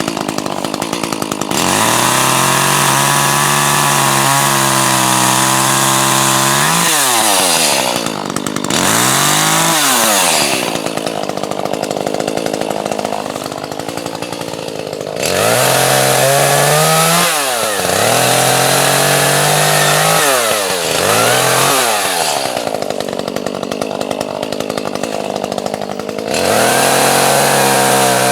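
Gasoline chainsaw cutting logs into firewood. The engine revs up, holds a steady pitch through each cut, then drops back between cuts, several times over.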